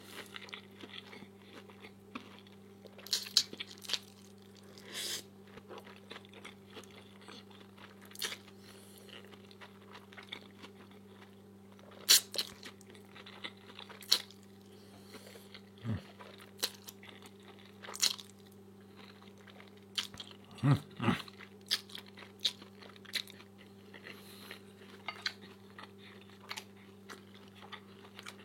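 Close-up crunching and chewing of crispy fried egg rolls, in irregular bites, some much louder than others, over a steady low hum.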